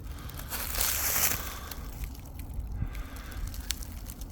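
Dry leaf litter and brush crunching and rustling in a few irregular bursts, the loudest about a second in.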